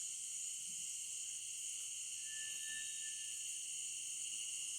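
Steady, high-pitched chorus of insects at dusk, a continuous shrill drone in several layers. A faint, thin whistled note sounds for about a second a little past two seconds in.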